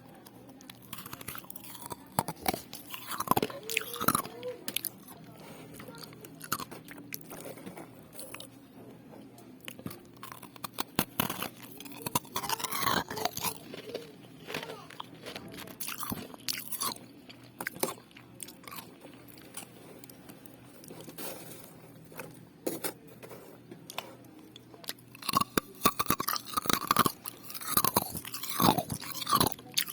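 Close-up crunching and chewing of refrozen shaved ice, biting into hard icy chunks with sharp, irregular crackles that come in bursts.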